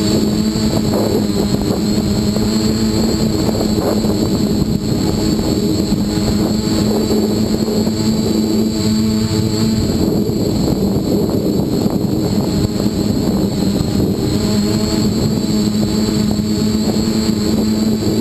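Dead Cat 450 quadcopter's electric motors and propellers running in flight, a steady multi-toned buzz with a high whine above it and a rough low rumble beneath. The main tone eases for a few seconds past the middle, then comes back.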